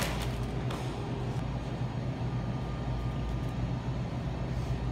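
Steady low hum of a shop's background noise, with a short click at the start.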